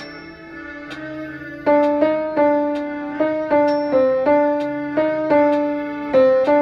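Piano playing a slow melody: soft sustained notes at first, then about one and a half seconds in it gets louder, with notes struck at about three a second over a held low note.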